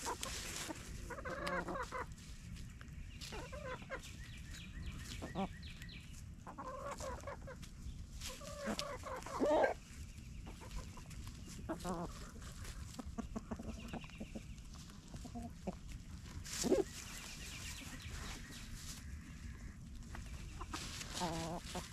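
Chickens clucking, with short calls every few seconds.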